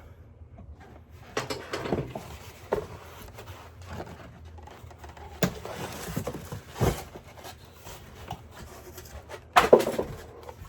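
Unboxing handling sounds: packaging rustling, with scattered knocks and clicks as items are lifted out and set down. The loudest is a short burst of handling about nine and a half seconds in.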